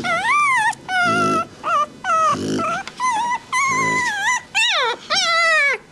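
Newborn Rottweiler puppy crying: a run of loud, high-pitched, wavering whines and squeals, the last two sliding down in pitch, with short lower grunts between them.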